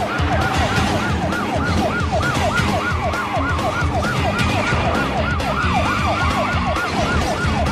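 Police car siren on a fast yelp, its pitch rising and falling about three times a second, over a low rumble.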